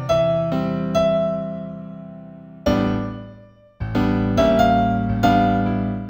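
Solo piano playing a slow, gentle new-age instrumental in C major: chords and melody notes struck and left to ring. About three seconds in the sound fades almost to silence before a new chord comes in.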